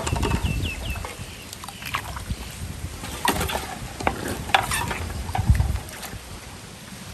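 Irregular water splashing and knocks, over a low rumble of wind on the microphone, with a quick run of about five short high chirps near the start.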